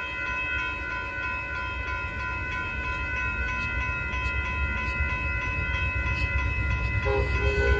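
Amtrak passenger train approaching, its low rumble growing steadily louder, with steady high-pitched ringing tones over it. Near the end a lower pitched sound starts, breaking in and out.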